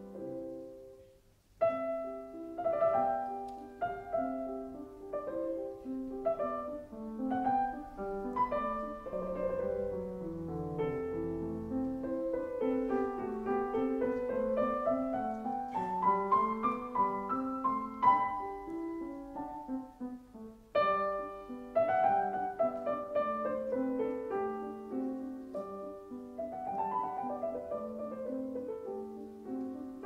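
Background piano music: a calm instrumental of flowing runs of notes, with a brief pause about a second and a half in.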